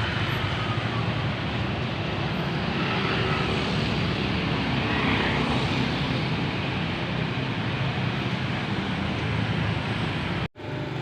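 A heavy vehicle's engine runs steadily with a low rumble over road traffic noise. The sound drops out for a split second near the end.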